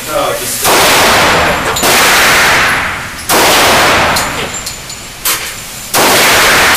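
Kimber Ultra Carry II .45 ACP pistol firing four unevenly spaced shots in an indoor range, each shot trailing off in a long echo.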